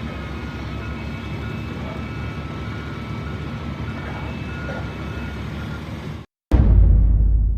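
A steady engine-like rumble with faint, thin high tones coming and going, which cuts off abruptly about six seconds in. After a brief silence comes a sudden, loud deep boom that fades away.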